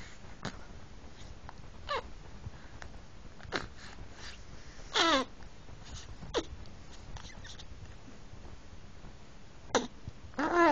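A month-old baby making short squeaky vocal noises, about seven brief calls that each slide down in pitch, the loudest about five seconds in and another at the very end.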